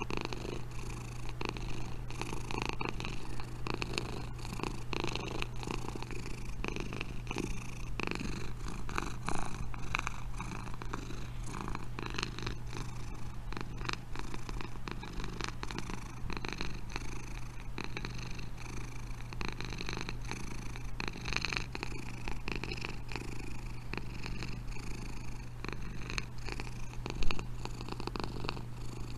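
Domestic cat purring steadily and close up, a continuous fine rattling rhythm, with a brief louder bump about nine seconds in and a sharper one near the end.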